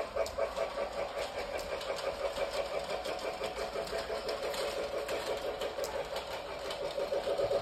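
Toy Christmas train running around its track under the tree: a small motor's steady mechanical chugging with a rapid even rhythm of several pulses a second and faint clicking.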